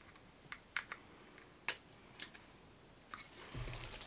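Faint, scattered plastic clicks and taps from handling a small eyeshadow palette in a clear hinged plastic case, then a short rubbing noise with a low bump near the end as it is brought up close.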